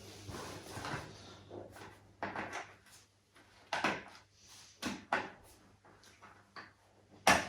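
Plastic parts of a baby rocker frame being handled and pushed together, giving several short knocks and clicks as a piece is clicked into the base, with one sharp, loud click near the end.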